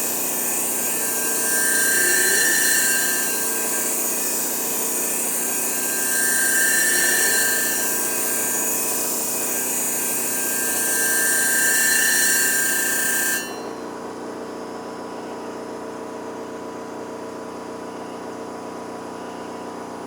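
Clipper blade being ground on the spinning abrasive plate of a Nebraska Blades sharpening machine: a steady gritty hiss over the motor's hum, swelling about every five seconds. About thirteen seconds in the grinding stops suddenly as the blade comes off the plate, and only the machine's motor hum goes on.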